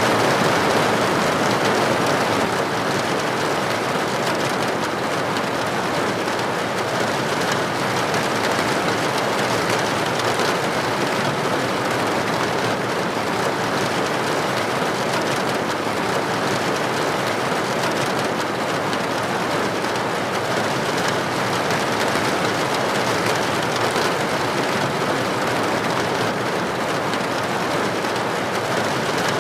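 Steady rain falling: an even, unbroken rush of water with faint scattered drop hits.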